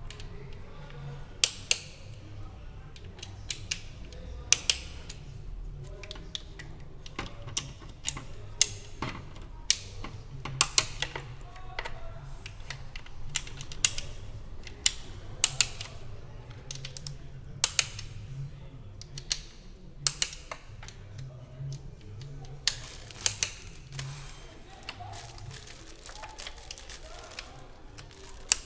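Irregular sharp metallic clicks and clinks of hand tools and engine parts being handled, some in quick runs like a ratchet, over a low steady hum.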